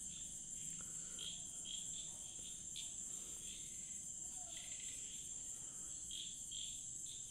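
Faint insect chorus: a steady high-pitched trill with shorter chirps repeating about twice a second.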